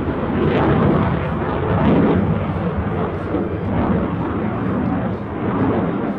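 Dassault Rafale fighter jet in flight, the loud rushing noise of its twin Snecma M88 turbofan engines rising and falling in loudness as it manoeuvres overhead.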